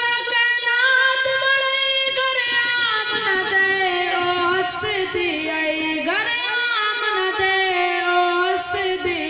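A boy singing a Punjabi naat unaccompanied into a microphone, holding long drawn-out notes. The pitch slides down about three seconds in, wavers, then settles on a lower sustained note.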